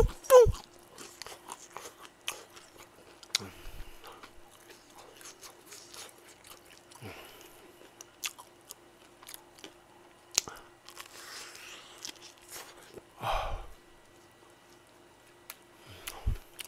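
Close-miked chewing and biting of crispy fried chicken: scattered sharp crunches and wet mouth clicks, with one louder burst about three-quarters of the way through. A faint steady hum lies underneath.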